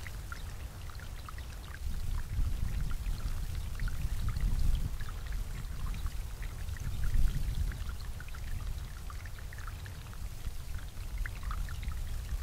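Water from a backyard bubbler water feature bubbling and splashing continuously, with many small drips and splashes over a steady low rumble.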